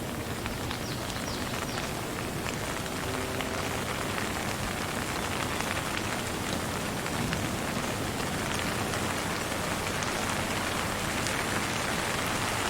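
Steady rain with no thunder: a dense, even hiss of falling rain with the sharp ticks of many single drops striking nearby.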